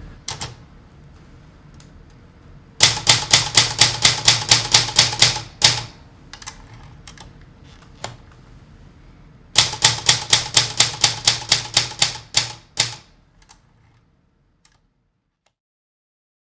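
Typewriter being typed on: two runs of quick, even keystrokes, each lasting about three seconds at roughly five strikes a second, with a few single key clicks between them. The typing stops about two seconds before the end.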